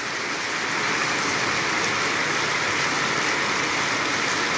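Heavy rain pouring steadily, an even unbroken hiss.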